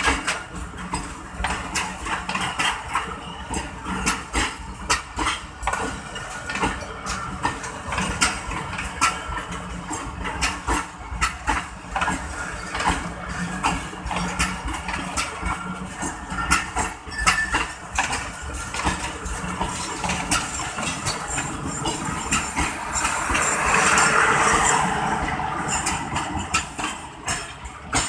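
Passenger coaches of a departing Pakistan Railways express train rolling past close by, their wheels clicking and knocking over rail joints in a constant uneven clatter over a low rumble. The clatter swells into a louder rush about 23 seconds in.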